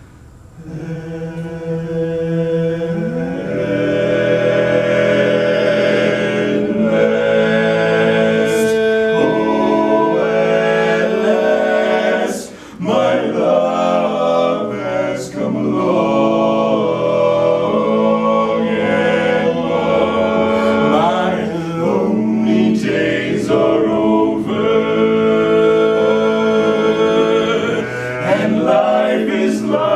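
Male vocal quartet singing a cappella in close four-part harmony, entering about half a second in and swelling over the first few seconds, with a brief dip about twelve seconds in.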